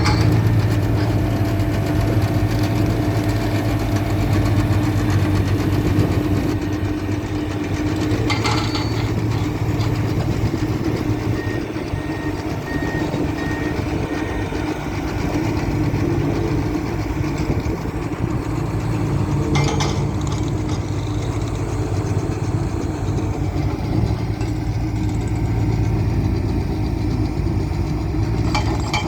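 Road roller's engine running steadily, with two brief knocks about a third and two-thirds of the way through.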